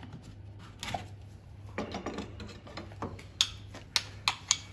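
Light metal clicks and clinks from the parts of a Ford Cortina Mk5 clutch pedal box and its self-adjusting clutch ratchet being handled and fitted. There is a short scrape about two seconds in and a quick run of clicks near the end, over a faint steady hum.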